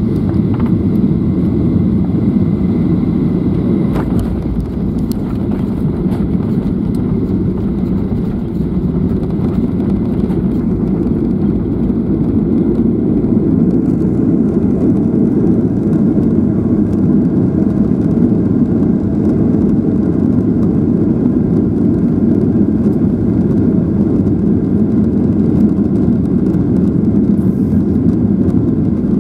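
Boeing 737 airliner landing, heard inside the cabin: a steady loud rumble of engines and rushing air through touchdown and the rollout along the runway with the ground spoilers raised. A few faint knocks come about four seconds in.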